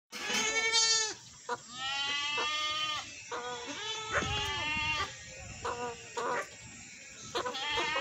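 A goat bleating again and again: two long calls of about a second each, then a string of shorter bleats.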